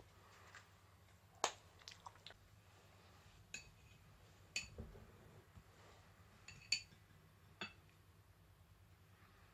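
A metal table knife clinking lightly against a ceramic bowl and plate: about five short, sharp taps over the first eight seconds, some with a brief ring.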